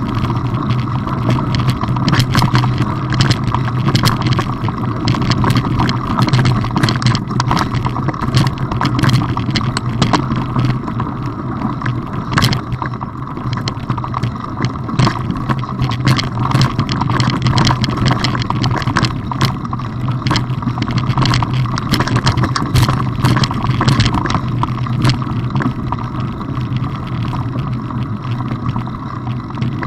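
Mountain bikes riding over a rocky gravel trail: a steady loud rumble of tyres on stones, broken by many sharp clicks and rattles from gravel and the bikes over the rough ground.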